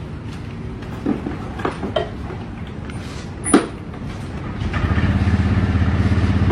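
A few short knocks and clicks, then a motorcycle engine comes in about two-thirds of the way through and keeps running steadily and louder.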